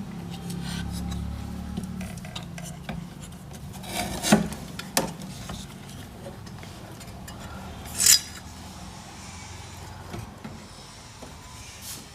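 Light metallic clinks and rubbing of tools being handled on an amplifier circuit board. A few sharper clicks come about four, five and eight seconds in.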